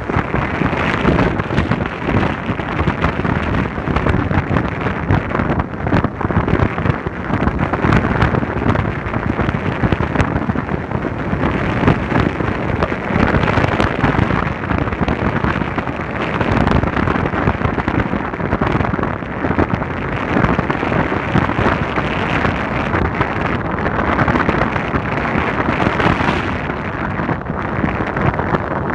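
Wind buffeting the microphone of a moving vehicle, a loud, rumbling rush of noise with road noise underneath.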